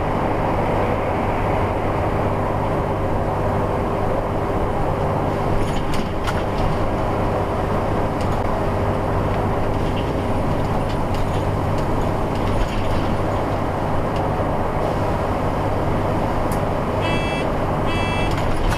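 Cummins ISL 8.9-litre diesel of a motor home pulling up a long grade in fourth gear at about 2,000 rpm. It is a steady drone mixed with road and tyre noise, heard from inside the cab. Near the end come a few short high beeps.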